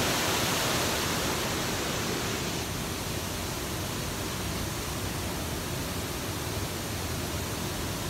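Steady rush of falling water from a waterfall, easing slightly about two and a half seconds in.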